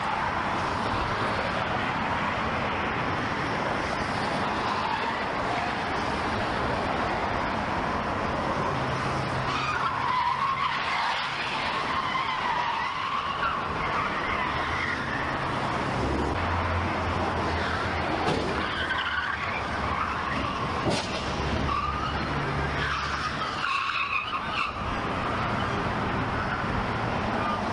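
Car tyres skidding and squealing in drawn-out wavering squeals over a steady rush of vehicle and road noise.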